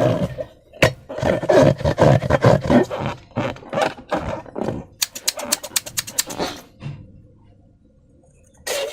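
Slime being squeezed and worked by hand, a dense run of wet squelches and crackling pops that dies away about seven seconds in. A short loud burst comes near the end.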